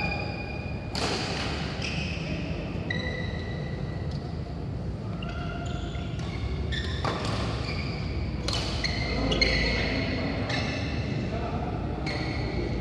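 Badminton rally: rackets smacking the shuttlecock several times, with short high squeaks of shoes on the court mat between the hits, ringing in a large hall.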